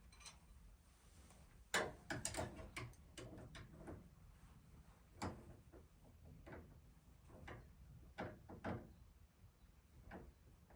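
Hand tools clinking and knocking on steering linkage parts: a sharp knock about two seconds in, a quick cluster of clicks right after, then a few scattered single knocks.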